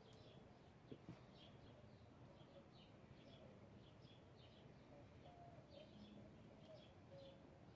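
Faint birds chirping: many short high chirps repeating over a quiet background hiss, with a small tick about a second in.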